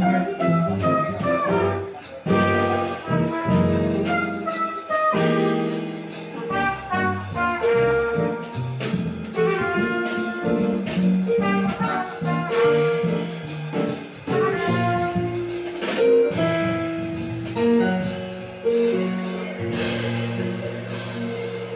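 Small jazz band playing live: a trumpet carries the melody over electric keyboard, upright bass and drum kit with cymbals.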